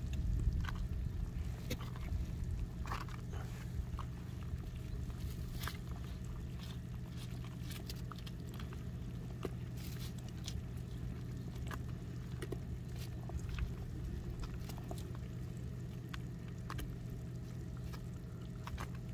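Scattered light clicks and rustles of a thin stick poking and sifting through a pile of small wet fish and shrimp on a woven plastic sack, over a steady low rumble.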